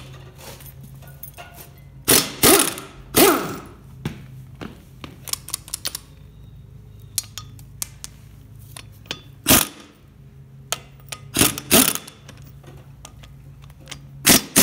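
Impact wrench run in short bursts on the bolts of a hay tedder's gearbox housing, loosening them, with metal clinks in between. Two longer bursts come a couple of seconds in and shorter ones follow later, over a low steady hum.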